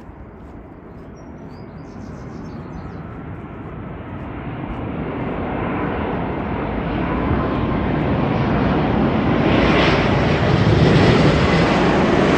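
The four Rolls-Royce Trent 900 jet engines of a British Airways Airbus A380 on final approach pass low overhead. It is a deep jet rumble that grows steadily louder and is loudest near the end, with a faint whine over it.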